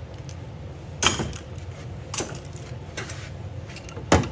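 Metal parts of a 700R4 transmission oil pump clicking and knocking as they are handled, with a sharp knock about a second in and another near the end, and lighter clicks between. A steady low hum runs underneath.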